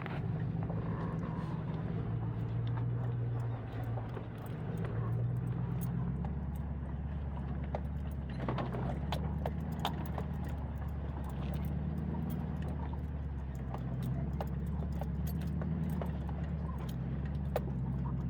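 Toyota Tundra pickup's engine pulling at low revs under load up a steep off-road climb, a steady low drone that steps in pitch now and then. Many short clicks and knocks scattered through it, from stones under the tyres and rattles in the truck.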